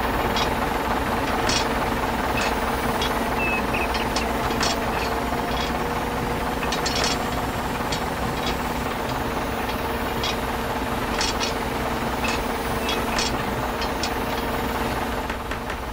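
Small electric motor and gearbox of a toy grapple crane whirring steadily, with scattered sharp clicks and knocks as the grapple handles the small logs.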